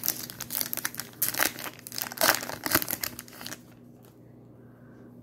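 Foil wrapper of a Topps Chrome baseball card pack being torn open and crinkled by hand: a dense run of crackles and rustles that stops about three and a half seconds in.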